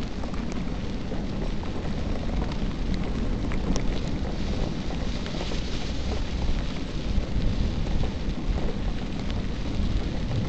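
Wind noise on the microphone of a camera mounted on a moving bicycle, with the tyres rolling over a gravel road and scattered small clicks and rattles.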